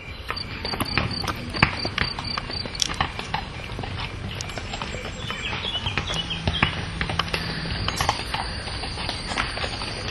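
Horse hooves clopping: a run of sharp, irregularly spaced hoofbeats.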